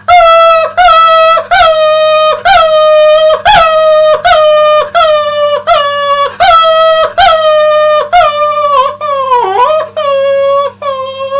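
A man mimicking a dog yelping in pain after being hit on the leg: a long run of high yelps, about two a second, that turn into wavering whimpers near the end.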